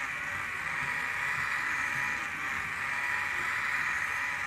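Small DC motor with a brass spur-gear reduction box running with a steady high whine as it turns a miniature paddle wheel lifting sand.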